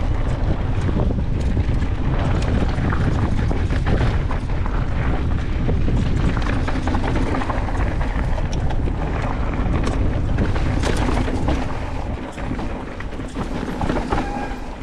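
Mountain bike descending a dirt trail at speed: wind buffeting the camera microphone as a heavy rumble, with tyre noise on the dirt and frequent clicks and knocks from the bike rattling over rough ground. It gets somewhat quieter about twelve seconds in as the bike slows.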